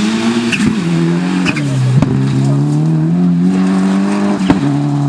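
Mitsubishi Lancer Evolution rally car's turbocharged four-cylinder engine accelerating hard at full throttle. Its pitch climbs and drops at three gear changes, about half a second in, at two seconds and near the end, with sharp cracks at the shifts.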